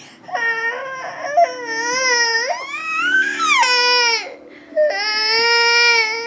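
A one-year-old baby boy crying in loud wails: several cries in quick succession, one climbing in pitch around the middle, then a short break and one long held wail.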